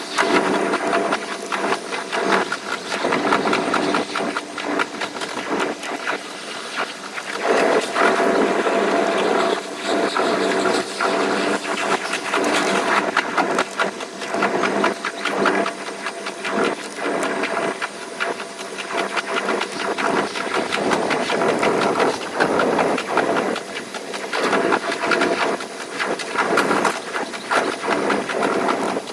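Running noise of the Kuroshio limited express electric train: a steady hiss and rumble with a few faint steady tones and rapid irregular clicks throughout.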